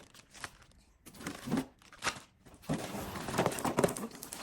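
Plastic packaging crinkling and rustling as the pieces of a marble run toy are unpacked, with a few light clicks. It gets louder and denser in the second half.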